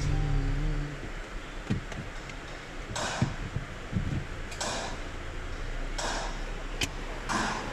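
A steady pitched tone that stops about a second in, then a few sharp clicks and several short rustling or scraping bursts over a low steady hum, like something being handled or moved.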